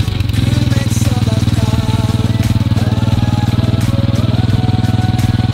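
Honda XRM 125 single-cylinder four-stroke engine, fitted with a 57 mm bore setup, running steadily at an even speed, with background music over it.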